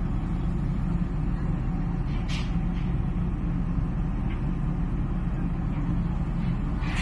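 Steady low rumble of vehicle engines as cars are driven off a car carrier's ramp onto the quay. Two short hisses cut through it, one about two seconds in and one near the end.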